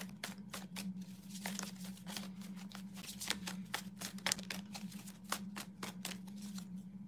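A tarot deck being shuffled by hand: a continual run of quick, light card flicks and slaps, over a steady low hum.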